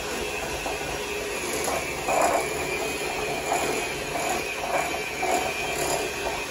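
Handheld electric mixer running with a steady whir, its beaters whipping homemade shaving cream in a bowl.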